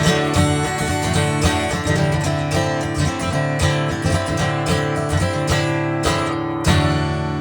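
Acoustic guitar playing the closing instrumental bars of a folk song, a run of strummed and picked strokes ending on a final strum near the end that is left to ring.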